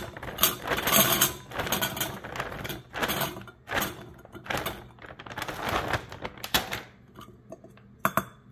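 Peeled garlic cloves dropping through a stainless steel canning funnel into a glass jar: an irregular run of light knocks and clatters that thins out near the end.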